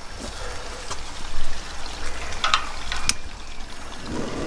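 Propane burner on a Camp Chef Explorer 2X double stove burning with a steady hiss of gas and flame, with a few sharp clicks as the second burner's knob is pushed in and turned. About four seconds in, a fuller rush of flame noise joins as the second burner lights.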